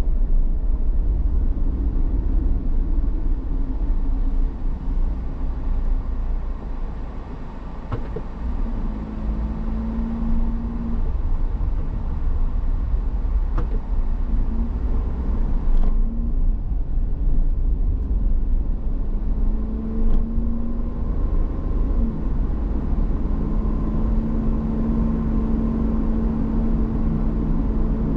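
Steady road and engine noise from a vehicle on the move, with a heavy low rumble and an engine hum that rises and falls a little. A few sharp clicks are scattered through.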